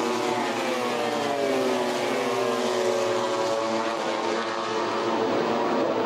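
Engine drone: a steady tone whose pitch slides slowly up and down over several seconds, holding an even level.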